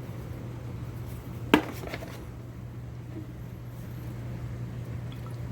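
A single sharp clack of a screwdriver being handled, about a second and a half in, with a couple of faint knocks after it, over a steady low hum.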